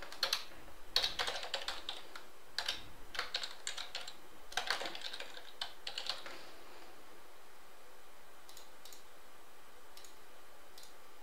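Typing on a computer keyboard: a run of uneven key clicks that stops about six seconds in, followed by a few faint isolated clicks.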